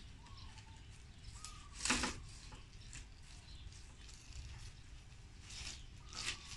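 Green coconut leaf strips rustling as they are pulled and threaded through a woven hat brim, in a few brief rustles, the loudest about two seconds in.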